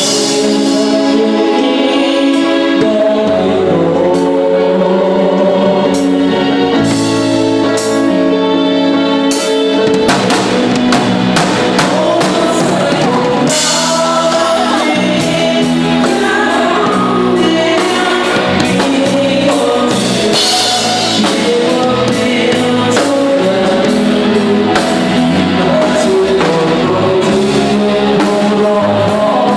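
Live Thai retro ramwong band music with singing and a drum kit played by a young child. The drum strokes become steady and dense about ten seconds in.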